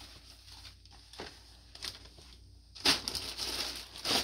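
Plastic poly bag crinkling as it is handled: a few faint rustles, then loud crinkling starting about three seconds in.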